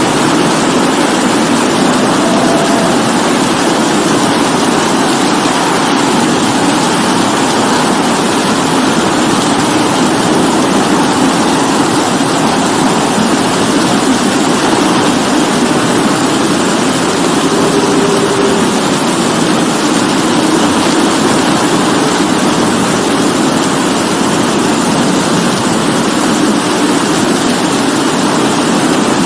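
Steady rain falling without a break, an even full hiss.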